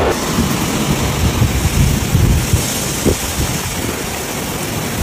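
Heavy thunderstorm rain falling steadily, with gusting wind buffeting the microphone.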